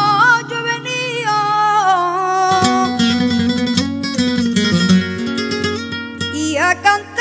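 A boy singing a flamenco fandango through a microphone, a long drawn-out wavering line that slides down in pitch, over flamenco guitar accompaniment. The guitar strumming comes forward about two and a half seconds in, and the voice swoops down and up again near the end.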